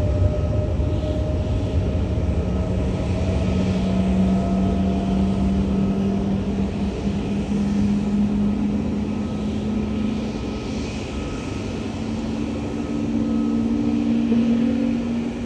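Airliner engines running: a low rumble with a few steady humming tones that drift slowly upward in pitch.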